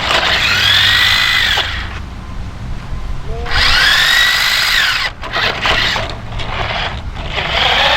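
Electric drive motor and gears of a Fastlane Dark Star RC monster truck whining in three bursts as the throttle is applied, each rising and then falling in pitch.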